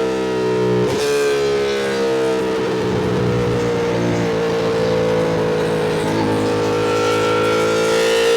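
2025 Ducati Panigale V2's V-twin engine running under way. Its note dips sharply about a second in, sinks gently, then climbs slowly as the revs build.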